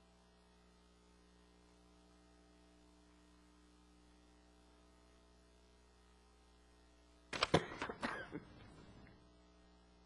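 Steady electrical mains hum on a quiet audio feed. About seven seconds in comes a brief, much louder cluster of sharp noises lasting under two seconds.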